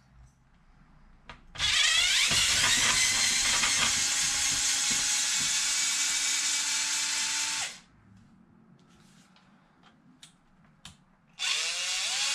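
Cordless electric screwdriver running to back out bolts from an RC truck's rear end. One run lasts about six seconds, starting a second and a half in, and its motor whine wavers. A second, short run near the end rises and falls in pitch.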